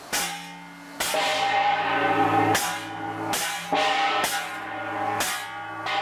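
Handheld Korean gongs beaten with wooden mallets, about eight uneven clanging strokes that each ring on and overlap. The gongs are being struck to scare wild animals away.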